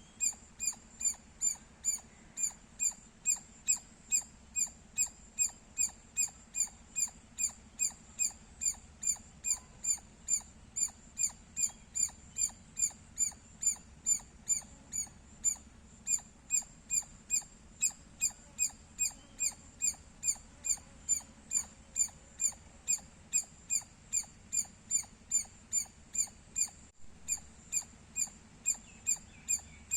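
A squirrel chirping loudly and repetitively: short, sharp, high-pitched chirps at a steady pace of about two a second, briefly cut off once near the end.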